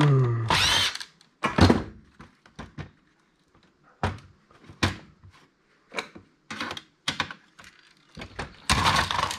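Handling of a MICROS POS terminal's plastic housing and circuit board during disassembly. A short squealing scrape comes right at the start, then scattered knocks and clunks, and a louder rattling clatter near the end.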